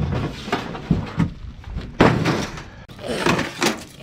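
Scrap metal being thrown off a truck onto a scrap pile: a series of clanks and thuds, the loudest about two seconds in.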